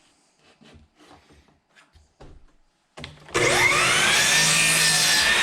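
A few light knocks of boards being handled, then about three seconds in an electric table saw is switched on, its whine rising quickly as the motor spins up and then running loud and steady at full speed.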